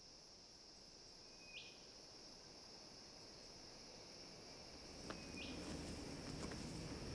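Faint insect chorus: a steady, high cricket-like trill, with a short chirp about every four seconds. From about five seconds in, a few light ticks and a low outdoor rumble join it.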